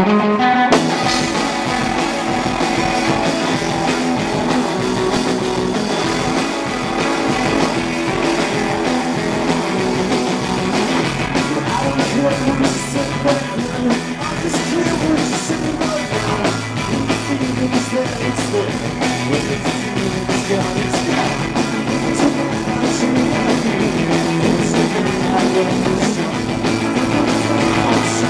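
Rock band playing live: electric guitar, bass guitar and drum kit, with a male lead vocal.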